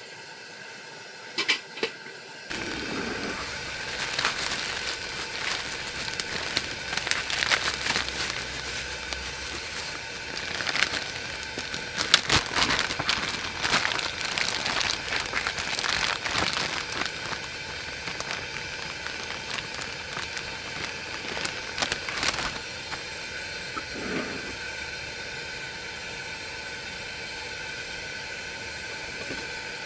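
A beer can's pull tab cracking open, two sharp clicks about a second and a half in. Then a plastic bag holding a raw whole chicken crinkles and rustles for several seconds as the bird is handled, over a steady hiss.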